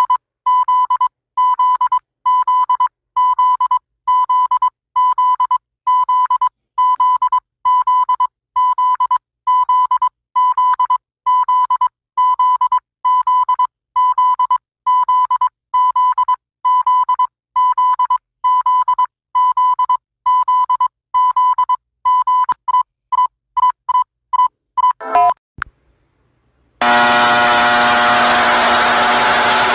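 Synthesized emergency alert beep tone: a pure beep repeating evenly, under a second apart, that turns into shorter, quicker beeps and ends with a brief downward glide. After a short gap, a loud, harsher alarm tone with many overtones starts near the end.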